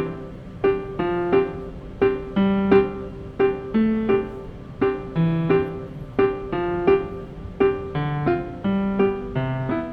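Background piano music: a repeating pattern of struck notes over a steady rhythm.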